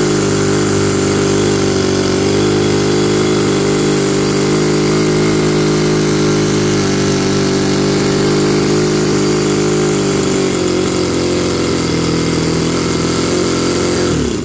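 Toyan FS-B400 miniature four-cylinder boxer engine running steadily on its first run-in. The owner hears it running rich and finds it temperamental, wanting to die when the carburettor needles are turned in. The sound cuts off suddenly at the very end.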